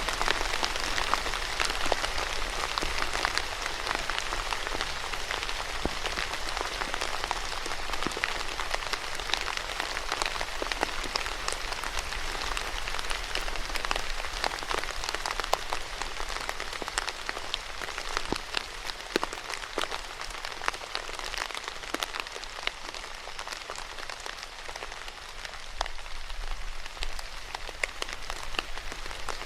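Steady rain falling on a hard surface, a dense hiss of many individual drops ticking.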